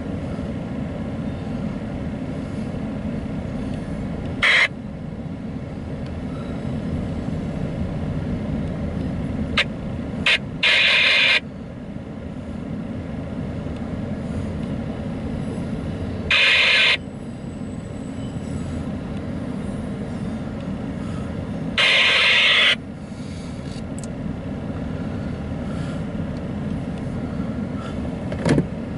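Empty autorack freight cars rolling past with a steady low rumble. A few times, every five or six seconds, there is a short, loud burst of noise from the passing train.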